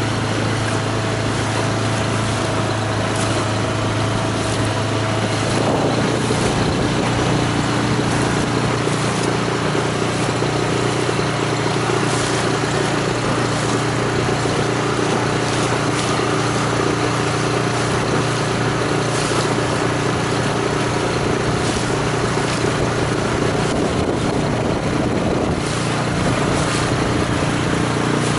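Outboard motor of an inflatable boat running steadily under way, with water splashing against the hull and wind on the microphone. The motor's note shifts about six seconds in.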